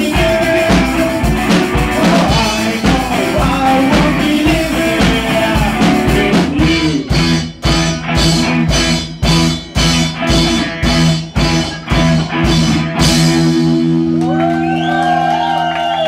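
Rock band playing with singing, electric guitar and drum kit. About six seconds in the band switches to short hits together, a little over two a second, and ends on a held, ringing chord.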